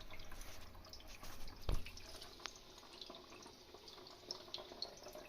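Faint water trickling and dripping at the basin plumbing, with a soft knock about 1.7 seconds in and a small click a little later.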